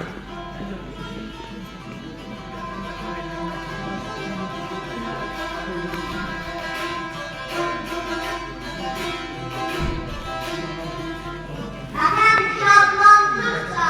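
Saz, the Azerbaijani long-necked lute, playing a melody of plucked notes over ringing strings, growing louder for the last two seconds.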